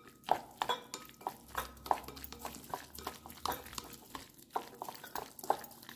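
Wooden chopsticks stirring diced raw salmon in a glass bowl, clicking and clinking against the glass in an irregular patter of about three taps a second.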